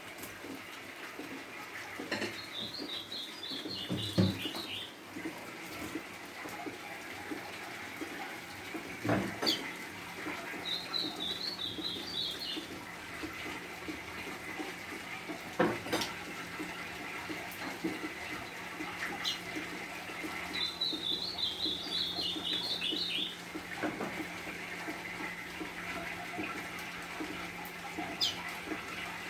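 Golinha (white-throated seedeater) singing short, chattering phrases, three of them about ten seconds apart, over a steady hiss of rain. A few sharp knocks are also heard.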